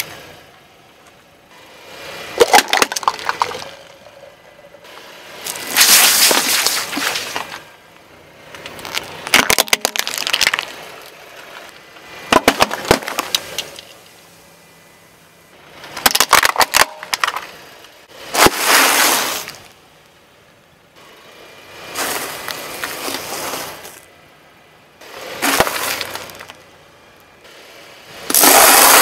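A car tyre crushing a run of objects one after another: plastic toys, plastic soda bottles and dry pasta nests cracking, crunching and breaking. About nine separate bursts a few seconds apart, the loudest near the end.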